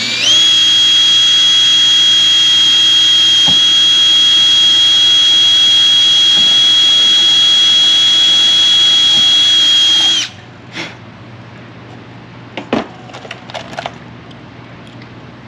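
Cordless drill spinning up and running at steady full speed with a high whine for about ten seconds, drilling a rivet hole, then stopping abruptly. A few light clicks and taps follow.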